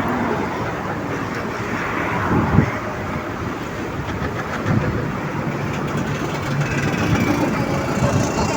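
Steady rumbling vehicle noise, with a few brief swells.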